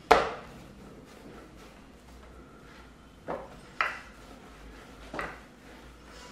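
Handling dough on a wooden chopping board: one sharp, loud knock right at the start, then three softer knocks about three to five seconds in, as the dough is set down, pressed on the board and put into a glass bowl.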